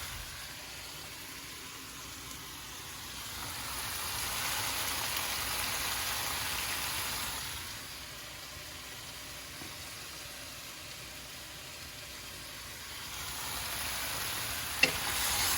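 Stir fry of vegetables in oil and sauce sizzling in a pan, the sizzle swelling twice, with a short sharp tap near the end.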